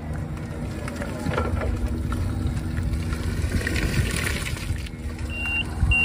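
Forklift driving across a yard, a steady low motor hum with tyre noise. Near the end it starts giving short, evenly spaced warning beeps at one high pitch.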